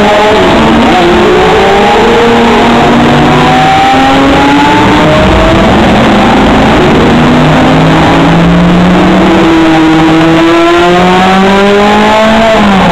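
Historic racing car engines revving hard as the cars accelerate away. Several engines overlap, each climbing in pitch through a gear and dropping back at the upshifts.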